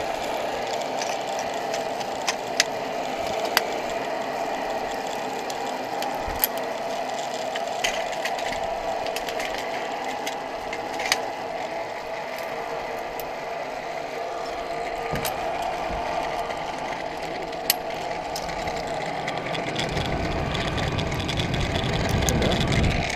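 Metal clicks and clinks of a zipline trolley, carabiners and lanyard being handled and clipped onto the steel cable, over a steady mechanical whirring hum. A low rumble builds over the last few seconds.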